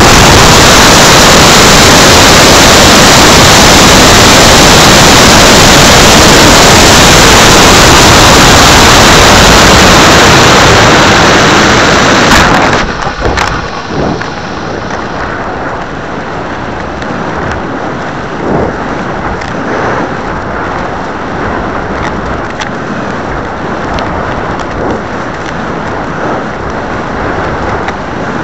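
Model rocket's F10-8 motor firing, heard through the rocket's onboard camera microphone: a very loud, distorted rush of motor exhaust and air from liftoff, easing off and then dropping sharply about twelve seconds in. After that, a quieter steady rush of wind over the airframe with scattered knocks and bumps.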